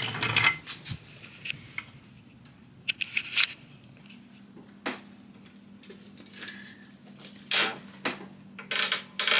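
Irregular metallic clanks and knocks from tools being handled, with a faint steady hum coming in about halfway through.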